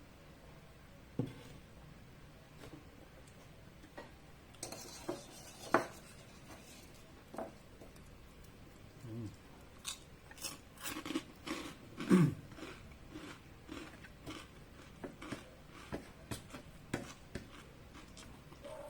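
Close-up eating of chicharon (fried pork rind): crisp crunching and chewing that comes as a dense run of crackles from about ten seconds in, after a few scattered clicks and knocks.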